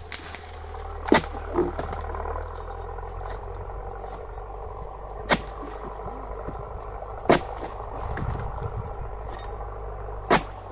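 Steel chisel on a long pole (a dodos) striking the tough base of an oil palm frond: sharp single hits every couple of seconds, spread unevenly.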